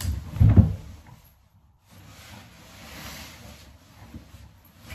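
A man getting into bed: a heavy thump as he drops onto the mattress, then a few seconds of soft, hissing rustle as he settles.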